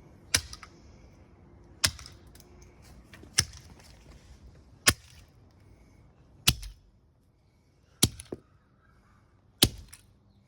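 Sledgehammer striking a power cord's plug housing, seven sharp blows about one and a half seconds apart, with a small extra knock just after the sixth.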